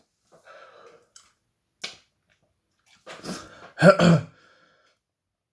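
A man eating a fresh chilli pod makes quiet mouth sounds, then a loud two-part throaty vocal outburst about four seconds in, a reaction to the chilli.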